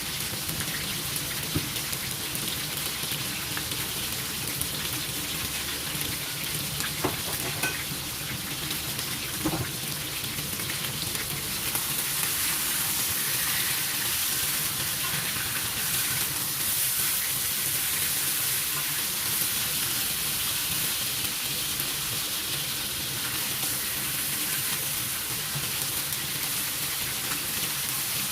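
Food frying and sizzling in a hot pan, a steady hiss that grows louder about twelve seconds in, with a few light clicks scattered through the first half.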